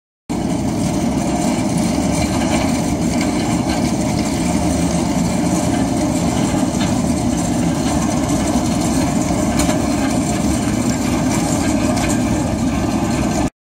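Steady rumbling of a heavy steel fuel tank rolling on small hard dolly wheels over rough concrete.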